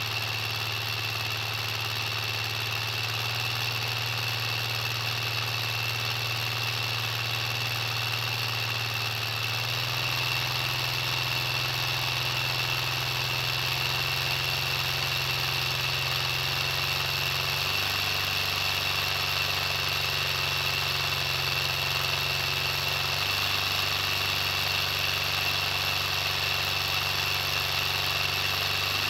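Engine sound imitating a Detroit Diesel 4-71 idling, coming from a LEGO model engine: a steady low hum whose pitch steps up about ten seconds in and steps down twice later, with a steady high whine above it.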